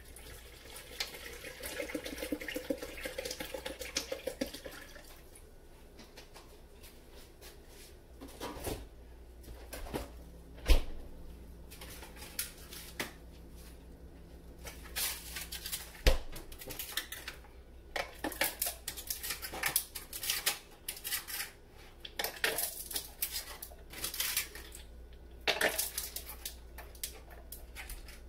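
Water poured from a plastic bottle into a blender jar for a few seconds. After that come scattered knocks, clinks and clatter of kitchen items being handled on a counter, the sharpest knock about eleven seconds in.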